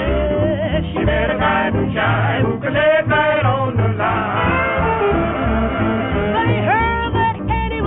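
Background music: a sung song with instrumental backing and a steady bass beat.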